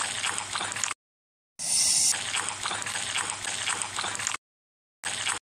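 Wet eating sounds, chewing and slurping with many small clicks, stopping dead twice for about half a second each. A short loud hiss comes just after the first gap.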